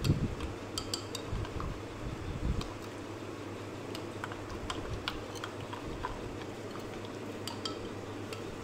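A spoon stirring yeast and warm milk in a ceramic mug, clinking lightly and irregularly against its sides, with a few dull knocks in the first three seconds.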